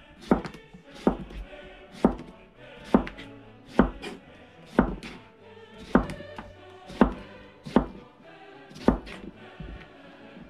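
Kitchen knife chopping on a cutting board in sharp single strokes, about one a second, over background music with choir-like voices.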